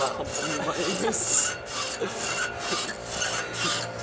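Rhythmic rasping noise, about four even scrapes a second, running steadily.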